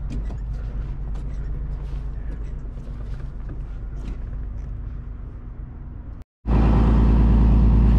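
A steady low engine hum with light scattered clicks and knocks, then, after a sudden cut about six seconds in, a fishing boat's engine running loud and steady underway.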